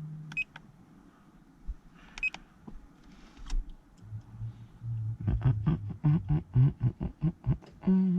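Handheld OBD-II scan tool beeping twice, short key-press beeps, while trouble codes are being cleared. From about five seconds in, a louder, rapid pulsing pitched sound runs for about three seconds.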